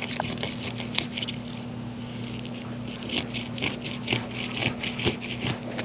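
A knife scraping and cutting at a slippery fish on a table: a run of short scrapes and clicks, coming quicker in the second half, over a steady low hum.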